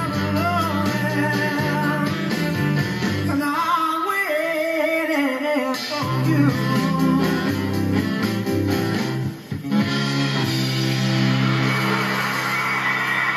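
Small band playing: a man sings with a wavering, vibrato voice over electric guitar, saxophones, double bass and drums. The singing drops out about halfway through while the band plays on, with a brief dip in the music about nine seconds in.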